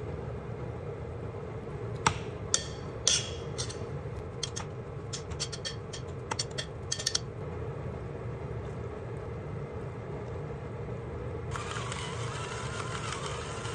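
A metal utensil knocking and scraping against a stainless steel pot while boiled potatoes and butter are mashed, a run of sharp clacks over several seconds. Near the end an electric salt mill whirs for about three seconds. A steady low hum runs underneath.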